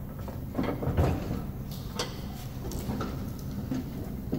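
Cub Cadet LTX1045 steel mower deck being turned over: a scraping rumble with dull knocks about a second in, then a few lighter metallic clicks and taps.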